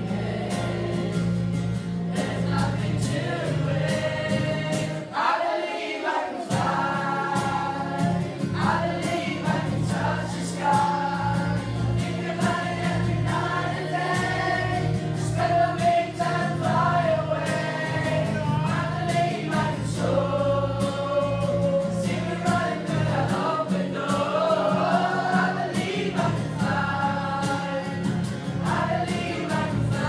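A group of young voices singing a song together, accompanied by an acoustic guitar. The low accompaniment drops out for about a second, five to six seconds in, while the voices carry on.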